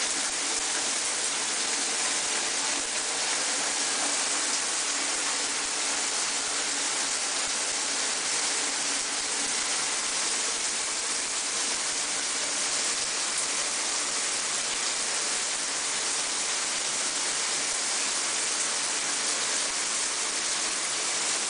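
A running shower: a steady, even hiss of spraying water.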